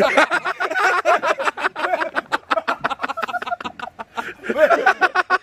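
A man laughing hard in rapid repeated bursts, breaking off briefly about four seconds in and then starting up again.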